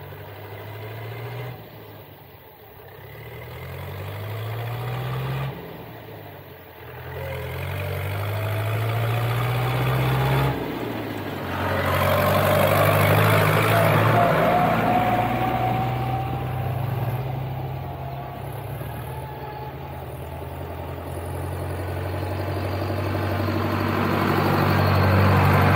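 Diesel engines of two Case IH tractors (a 795 and an 845 XL) coming up the road: the engine note climbs in pitch several times and drops back as the driver works up through the gears, getting louder as the first tractor, towing a trailer of wrapped bales, draws near, with a thin rising whine about halfway. A second tractor carrying a bale on its front loader comes up loudest near the end.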